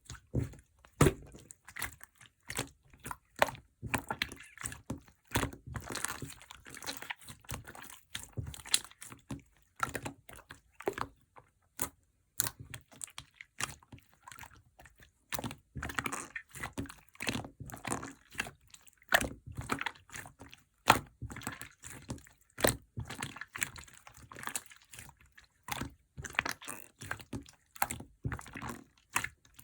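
Pink clear slime squished and pressed by hand, giving a quick, irregular run of wet clicks and pops.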